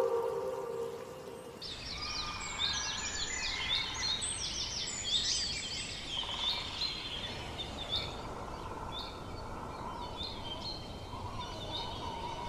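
Small birds chirping and twittering over a steady outdoor hiss. The chirps start about two seconds in, thick at first and sparser later.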